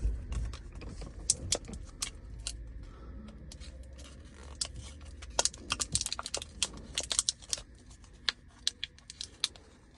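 Plastic blister pack of a CR2450 coin battery being handled and peeled open: a run of sharp crinkles and clicks, thickest in the second half.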